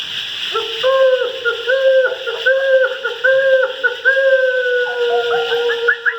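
Hooting, owl-like call: a run of short repeated notes at one pitch, about one a second, then one long held note that slowly drops a little and breaks into quick flourishes near the end, over a steady hiss.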